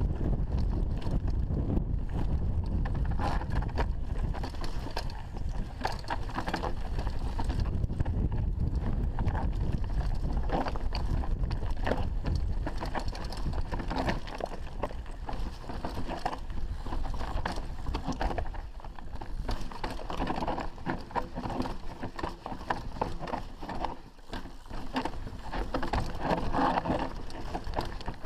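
Mountain bike rattling down a rocky trail: tyres crunching over loose stones and the bike clattering with each jolt, over a steady low wind rumble on the microphone.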